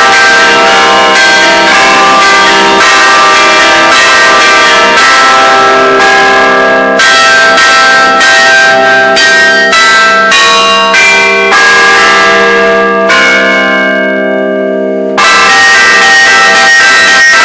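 Several Russian Orthodox church bells of St. Michael's Cathedral struck over and over in a fast rhythmic pattern, very loud, each stroke ringing on under the next. About thirteen seconds in, the strokes stop and the last chord rings and fades for about two seconds, then the ringing starts again suddenly.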